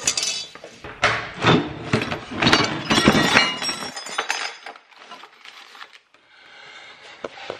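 Metal scrap parts (steel brackets and mounting hardware) being rummaged through in a wooden drawer, clinking and clattering against each other and the wood. The handling is busiest for about the first four seconds, then drops to a few light knocks.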